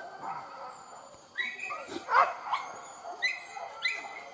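Hunting dogs yelping and barking in short, high-pitched calls, several in quick succession from about a second and a half in, over a steady background hiss.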